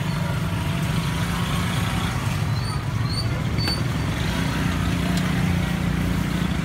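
Steady rumble of road traffic, engines running close by, with a few brief high squeaks about three seconds in.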